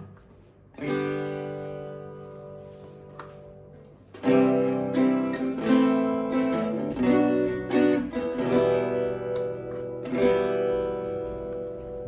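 Danelectro Convertible guitar being played: a chord struck about a second in rings out and slowly fades, then from about four seconds a run of picked notes and chords follows.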